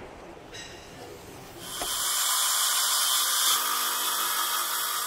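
DeWalt cordless circular saw cutting through a kitchen worktop: after a quiet start, the steady, loud noise of the blade going through the board begins about two seconds in and carries on.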